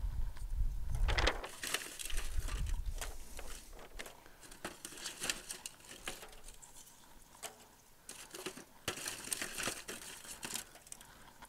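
Chunks of Lazzari mesquite lump charcoal being rummaged through in an aluminium foil pan and dropped into a metal chimney starter: irregular clinks and knocks of charcoal with crinkling of the foil pan, busiest at the start and again near the end.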